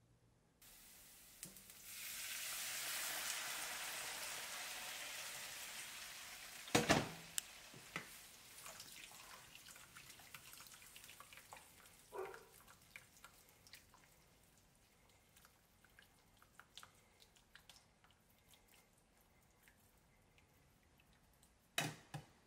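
Braising liquid in a hot skillet of butter-sautéed shallots on an electric stove. A loud sizzle starts about two seconds in and dies away over several seconds. Then the pan simmers with scattered small pops and crackles, and there is a sharp knock about seven seconds in and two more near the end.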